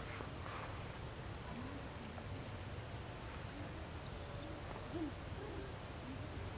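Faint outdoor background of a bird giving several short, low hooting calls, over a thin, steady high insect tone and a low rumble.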